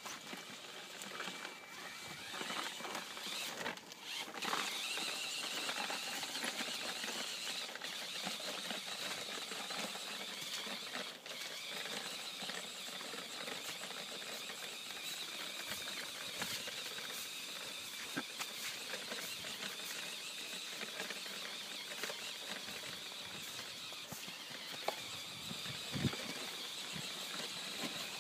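Home-built 1:10 scale RC rock crawler's small electric motor and gearbox whining steadily as it drives through snow, with scattered small clicks.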